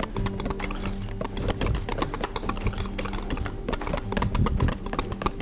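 Wire whisk beating a thick cheesecake filling in a stainless steel bowl: rapid, rhythmic clicking and scraping of the wires against the metal, over a steady low hum.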